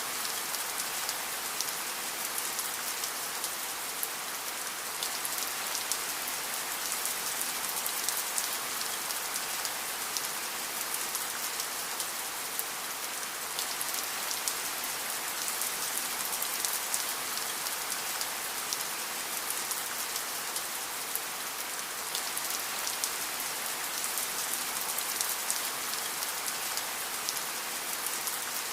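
Steady rain falling, a dense even hiss dotted with the fine ticks of drops striking a surface.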